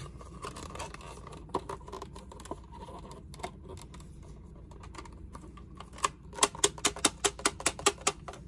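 Small clear plastic tray and lid being handled and pressed together, with small plastic game pieces inside: soft scattered clicks, then a quick run of sharp plastic clicks and rattles, several a second, near the end.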